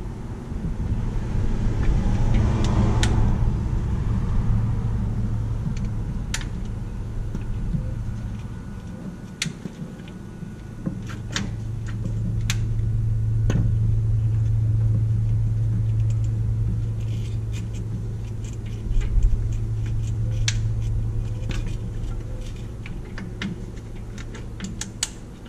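A low, steady engine-like rumble swells and fades twice. Scattered light clicks and taps come from spark plug wires and their boots being pulled off and handled at the distributor cap.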